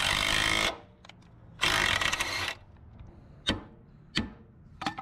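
Cordless impact wrench hammering on a rusted suspension bolt, run back and forth to clean up its threads for reuse. It stops under a second in and then gives a second burst of about a second. Three sharp metal clicks follow, spaced well apart.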